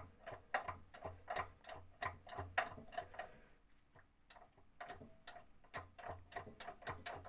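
A wrench rocking the crankshaft of a VAZ engine back and forth by hand: a steady run of short metallic clicks, about four a second, with faint thuds under them and a brief pause a little after the middle.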